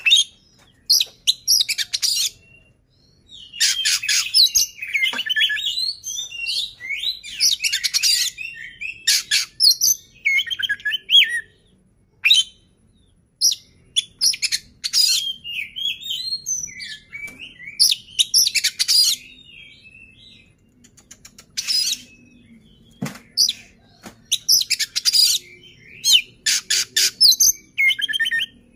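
Male Oriental magpie-robin singing vigorously: phrases of whistled notes mixed with harsh, rasping chatter, repeated with short pauses between them. The song goes quieter for a few seconds about two-thirds of the way through.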